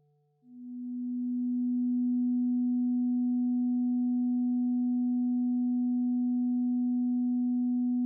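A pure electronic sine-tone drone. A low tone swells in about half a second in and then holds steady, over a faint higher tone, while an earlier lower tone fades away.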